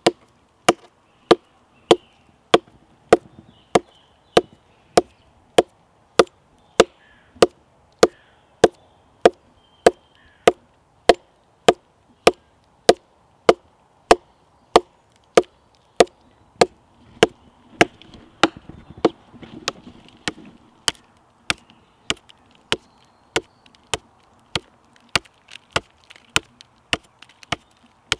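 Sharp wooden knocks in a steady rhythm, a little under two a second, coming slightly quicker near the end: wood being struck against wood.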